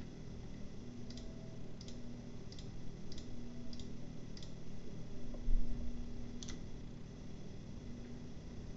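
Computer mouse clicking: six sharp, evenly spaced clicks, then a dull low thump and one louder click, over a low room hum.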